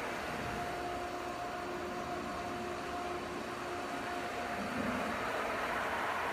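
In-ground pool pump running steadily while priming, pulling trapped air in from the main drain line as its valve is eased open. A faint steady tone sounds through it and stops about four seconds in.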